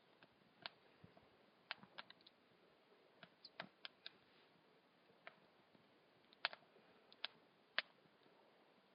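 Wood campfire crackling faintly: sparse, irregular sharp pops and snaps from the burning firewood, a few louder ones in the second half.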